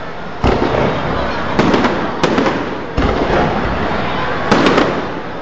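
Aerial firework shells bursting: a series of sharp bangs, some coming in quick clusters of cracks, each trailing off into a rumble.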